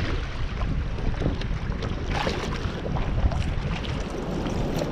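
Wind buffeting the microphone in a strong breeze, with water slapping and lapping against a kayak's hull in short, irregular splashes.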